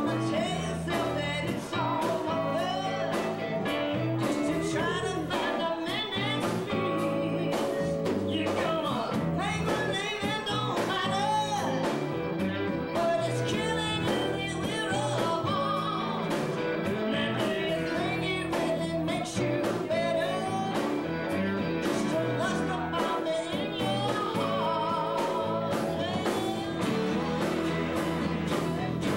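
Live band playing a song, with a woman singing lead over strummed acoustic guitar, electric bass and steady drum beats.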